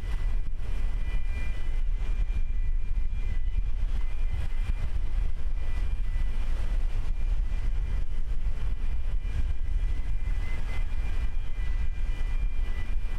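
Large container ship passing close, a steady low rumble with a faint, steady high whine from its machinery, and wind on the microphone.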